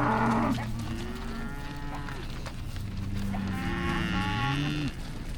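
Cattle mooing: several drawn-out, overlapping moos at different pitches from more than one animal.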